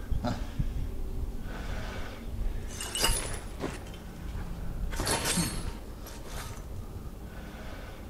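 Action-film fight sound effects: glass breaking in two sharp crashes, about three seconds and five seconds in, over a low background rumble.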